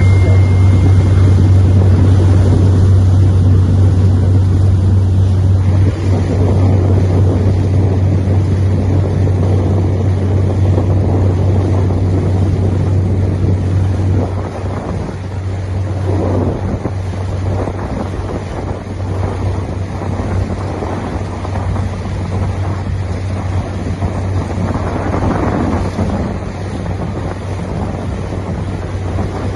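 Wind buffeting the microphone over a steady low hum, with swells of louder noise about halfway through and again near the end.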